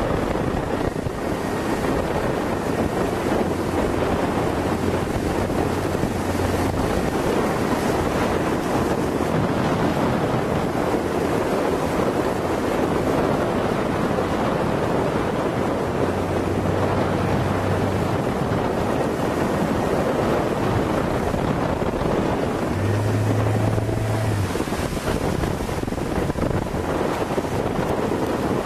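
A 25–30 knot wind buffets the microphone over the rush of choppy, whitecapped water and a boat's wake, loud and steady throughout. A faint low hum swells briefly three times.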